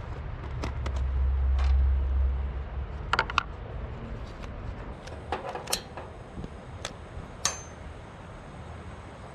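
A low rumble for the first two seconds or so, then several sharp clicks and clinks of small hard objects being handled, the last one with a brief ringing tone.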